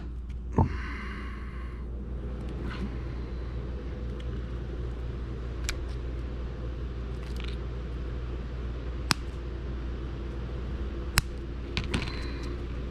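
A few sharp clicks and a brief scrape as small plastic servo case parts and the motor are handled and fitted together by hand, over a steady low hum.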